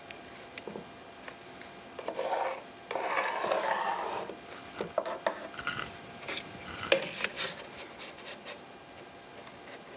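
Pencil scratching across a countertop offcut, marking the cut line and X's on the waste side along a level, in two short stretches about two and three seconds in. Light clicks and taps of the pencil and level on the board follow.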